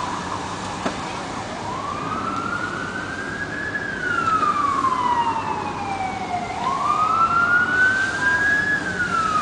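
Fire engine siren wailing, its pitch rising and falling slowly: it climbs, sinks, climbs again and starts to fall near the end.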